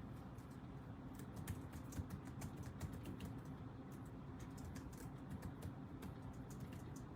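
Typing on a computer keyboard: a run of quick, irregular key clicks starting about a second in, over a steady low hum.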